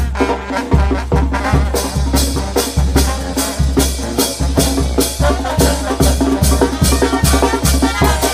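Live brass band playing dance music: sousaphone bass line under trumpets and trombones, with drums keeping a steady beat.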